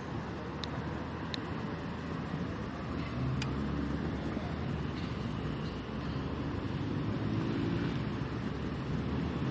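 Motorcycle engine running steadily, a low rumble whose pitch rises and falls gently a few times, with road noise under it and a few faint ticks.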